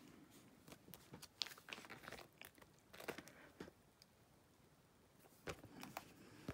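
Baseball cards and binder pages being handled: faint, scattered clicks and crinkly rustles, busiest in the first half, a short lull, then a couple more clicks near the end.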